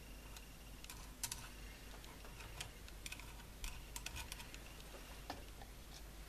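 Faint, irregular small clicks and scrapes of a pointed metal tool working grease into the open shaft bearing of an electric mower motor. The sharpest click comes about a second in.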